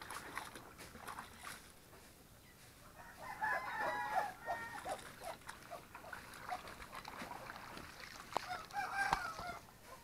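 A rooster crowing twice, once about three seconds in and again near the end, over faint splashing of clothes being hand-washed in a basin of water.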